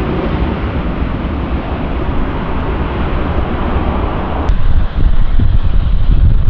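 Airliner engine noise, a steady broad rushing sound with a deep rumble, mixed with wind buffeting the microphone. About four and a half seconds in, the sound changes abruptly: the higher part falls away and a heavier low wind rumble takes over.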